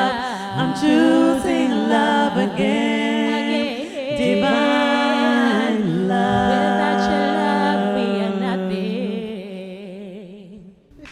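Three women's voices singing a cappella in close harmony, closing the song on long held notes that fade away near the end.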